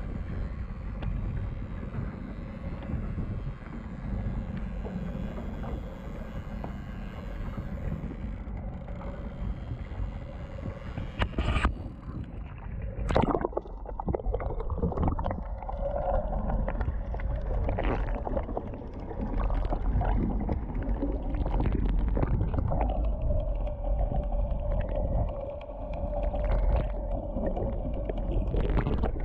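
Boat engine running under way with wind and water rushing past. About thirteen seconds in, after two splashes, the sound goes underwater: churning, gurgling water with the engine coming through as a muffled drone and a steady hum.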